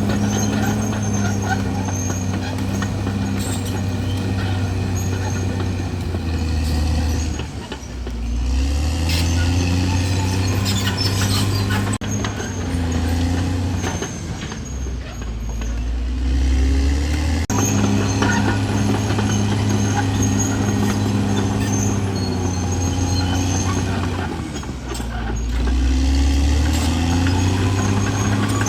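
Caterpillar D6R XL bulldozer's diesel engine running steadily. Its note dips in pitch twice, about a quarter of the way in and again near the end, and climbs back each time.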